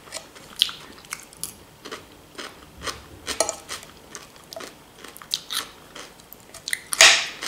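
Close-miked chewing of crunchy raw salad, with crunches and wet mouth clicks at an uneven pace. A louder, longer rush of noise comes near the end.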